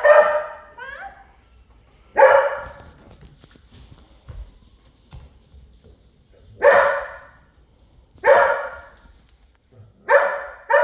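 A dog barking single barks, about five of them, one every two to four seconds.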